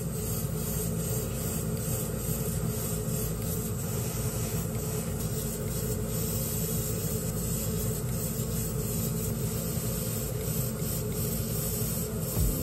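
Airbrush spraying clear coat: a steady hiss of compressed air and paint mist over a low, even motor hum.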